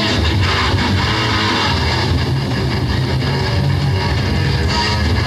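Live rock band playing: electric guitar and bass guitar over drums, loud and steady throughout.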